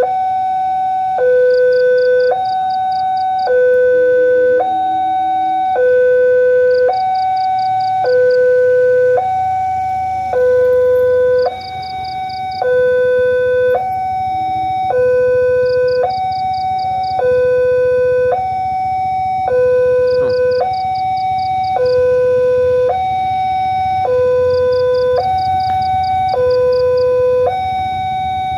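Railway level-crossing warning alarm from the loudspeaker on the crossing signal: an electronic two-tone signal switching between a higher and a lower tone about once a second, sounding while the barrier is down for an approaching train. A low rumble builds underneath from about a third of the way in.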